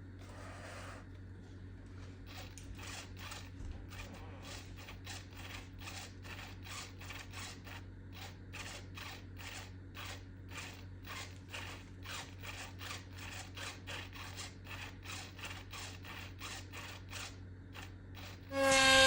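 A long series of short scraping or cutting strokes on cardboard, about three a second, over a steady low hum. Near the end a much louder sound with a clear pitch starts suddenly.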